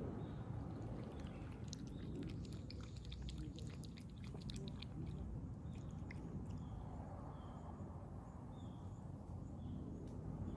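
A cat eating: wet clicking and crunching as it laps cat milk and chews dry kibble, busiest in the first half.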